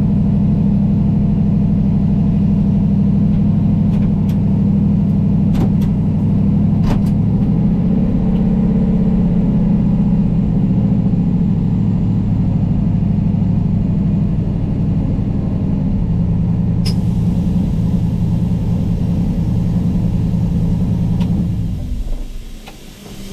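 Turbocharged LS V8 of a lowered single-cab pickup idling steadily, heard from inside the cab, with a few faint clicks; the engine shuts off near the end.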